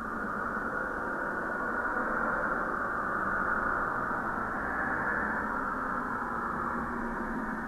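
A steady, muffled static-like hiss with no distinct events, swelling gradually over the first few seconds and then holding.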